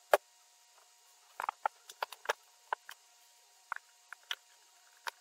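Irregular light clicks and taps of small craft supplies being handled on a desk. The sharpest comes right at the start, followed by a dozen or so quieter ones spread unevenly through the rest.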